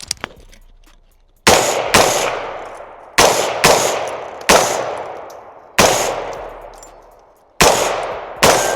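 Rifle fired in quick strings of shots, about eight shots mostly in pairs, starting a second and a half in. Each crack rings out with a long echoing decay.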